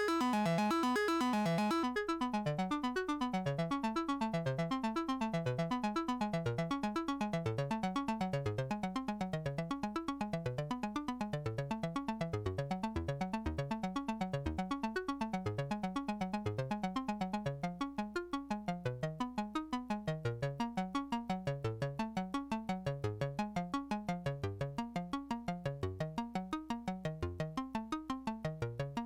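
Eurorack modular synthesizer playing a fast sequence of short, plucky notes, several a second, shaped by a CEMvelope ADSR envelope generator. The lower notes dip in pitch as they sound, and a hiss drops away about two seconds in.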